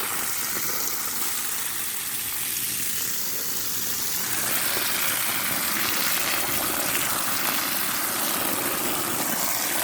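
Steady hiss of water spraying from a hose onto loose soil, washing the earth away from sweet potato roots. It grows brighter and a little louder about four seconds in.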